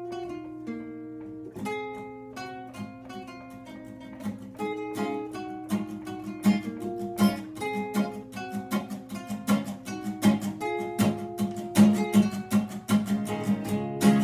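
Acoustic guitars playing an instrumental opening. It starts with single picked notes and builds from about four seconds in into steady strumming that grows louder.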